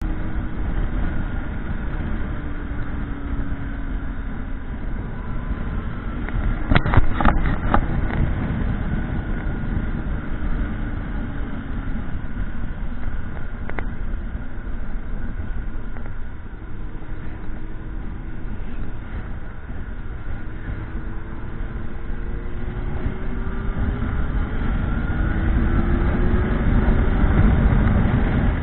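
Motorcycle engine running on the move, its pitch slowly rising and falling with the revs over a steady rumble of wind and road noise. There are a few sharp knocks about seven seconds in, and the engine gets louder near the end.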